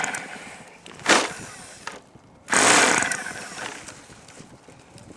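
Small fuel engine of an RC plane being started, firing in short sputtering bursts that die away without running on: a brief one about a second in and a longer one about two and a half seconds in. It is taken to be flooded.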